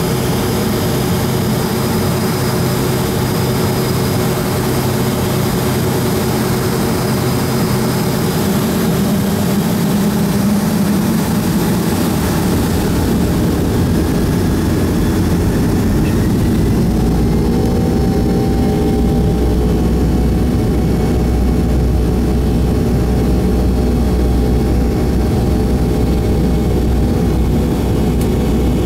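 Jet engines of a Boeing 757-200 running, heard from inside the cabin by the wing as the plane rolls on the ground. About halfway through, a high whine fades and a deep, steady rumble takes over.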